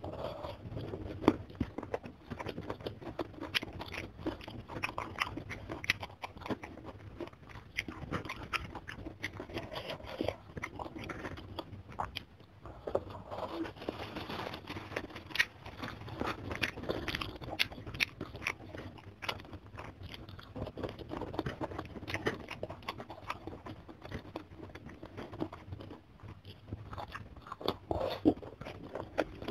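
Close-miked eating sounds: chewing and crunching a mouthful of rice with petai beans and sambal, eaten by hand, with many short crunches throughout.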